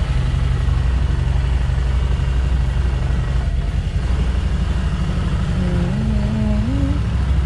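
Harley-Davidson Street Rod 750's V-twin engine running steadily at low revs while the bike is ridden slowly and turned in a tight space.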